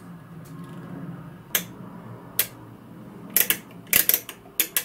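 Sharp clicks and light knocks from the aircraft oil temperature and pressure indicator being handled: two single clicks, then quick clusters toward the end, over a low steady hum.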